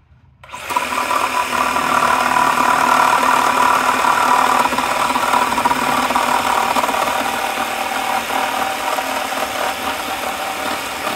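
Craftsman cordless reciprocating saw starting about half a second in and cutting steadily through a wooden board, the blade sawing back and forth in the wood.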